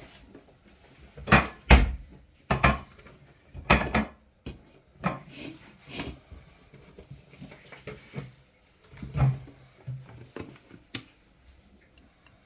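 Cookware being handled on a kitchen stove: a series of sharp knocks and clatters of a pan and utensils being set down, loudest in the first few seconds, then lighter taps.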